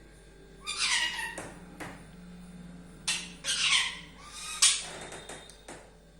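Pet parrot squawking: two loud harsh calls with a falling pitch, about a second in and about three seconds in, and a shorter sharp call a little later.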